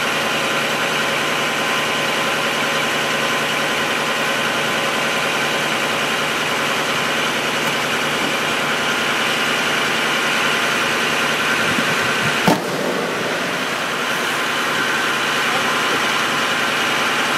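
An engine running steadily at idle, with one sharp knock about two-thirds of the way through.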